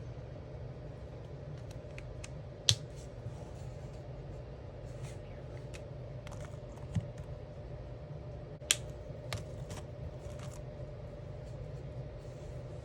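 Alcohol markers scratching on coloring-book paper in short strokes, broken by a few sharp clicks, the loudest about three seconds in and near nine seconds. A steady low hum runs underneath.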